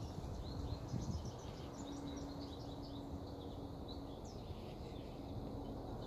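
Birds chirping high in the treetops: a steady scatter of short, faint, high chirps over a low background rumble.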